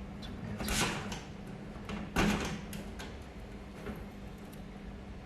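Oven casing parts being handled during disassembly: two short scraping, sliding noises about a second and a half apart, over a steady low hum.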